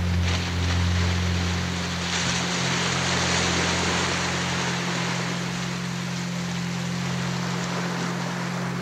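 Background music bed: a steady low drone under a rushing sound of surf, which swells about two seconds in and slowly eases.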